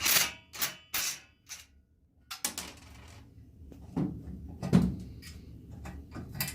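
Metal tools and engine parts clicking and knocking, about ten separate sharp clinks at uneven intervals, as the exhaust is worked loose from a small engine.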